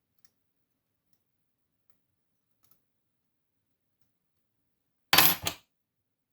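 A brief loud clatter of hard objects, two quick knocks close together about five seconds in, with a couple of faint ticks before it: lock hardware being handled and set down on the work surface during disassembly.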